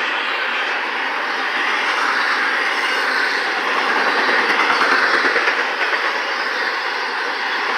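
Freight train cars of an intermodal train rolling past, with a steady rumble and rattle of steel wheels on the rails.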